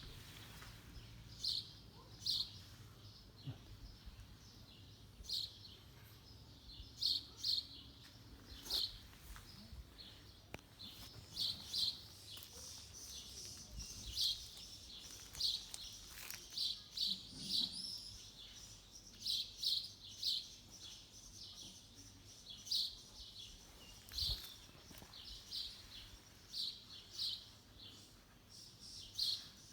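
Small birds chirping: short, high chirps repeated irregularly, sometimes in quick pairs or runs.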